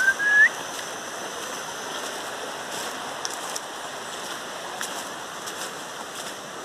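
A short rising whistle in the first half second, then a steady rushing hiss with a few faint ticks.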